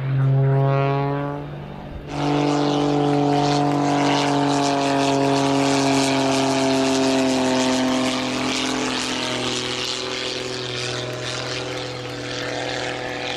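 Pitts S-2S Special biplane's six-cylinder Lycoming engine and propeller at high aerobatic power. The note rises in pitch over the first two seconds, then cuts in louder and sinks slowly in pitch, easing off a little after about eight seconds.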